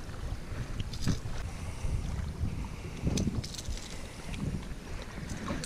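Wind buffeting the microphone in uneven gusts, a low rumble, with a few light clicks of handling scattered through it.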